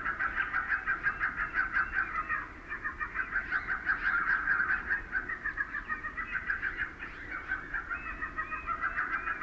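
Sparrows chirping in a dense, rapid, steady chatter: a sparrow lure call played through a loudspeaker to draw the flock onto glue-stick traps. It dips briefly about two and a half seconds in and again around seven seconds.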